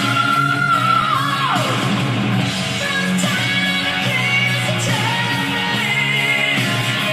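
Rock song with a singer and guitar playing through a homemade boombox's speakers during a sound test. A long held vocal note falls away about a second and a half in.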